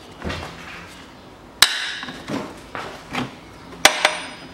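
Steel wrench clinking and scraping on the drive-belt tensioner pulley's bolt as the old pulley is unbolted. Two sharp metallic clinks about two seconds apart, among softer rattles and scrapes.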